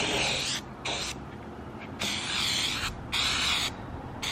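Aerosol spray can hissing in about four short bursts as it sprays lettering onto a car window.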